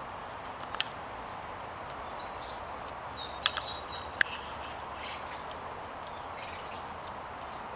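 Outdoor ambience with a steady background hum and scattered short, high bird chirps through the middle. A few sharp clicks stand out, about a second in and twice near the middle.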